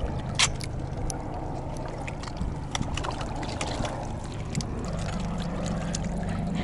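Shallow seawater lapping and trickling among shoreline rocks, under a low steady hum, with scattered sharp clicks throughout.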